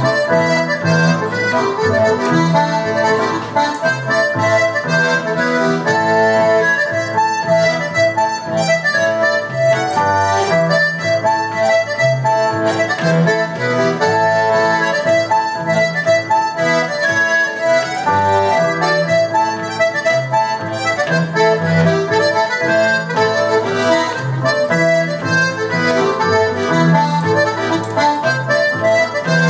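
Irish button accordion playing a polka at a steady march tempo rather than dance time, with keyboard accompaniment keeping a regular bass beat underneath.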